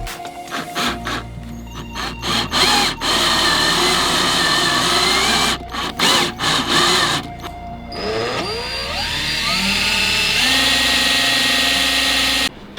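Power drill boring into thick steel, its motor whine rising as it spins up about two-thirds of the way through and then holding steady, with background music.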